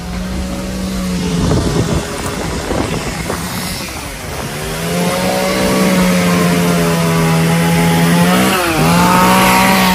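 A small engine running at a steady high speed, its pitch dipping briefly and recovering about eight and a half seconds in. Rough, scratchy noise sits over it for the first few seconds.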